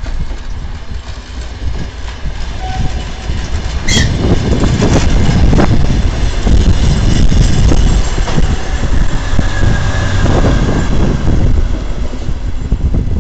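DR1A diesel multiple unit passing close by: a low diesel rumble and the clatter of its wheels on the track, loudest as the carriages go past. There is a sharp crack about four seconds in.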